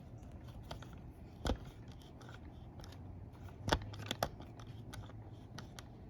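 Light clicks and knocks of small plastic parts being handled on a Roomba S9 wheel module, with sharper clicks about a second and a half in and again near four seconds in.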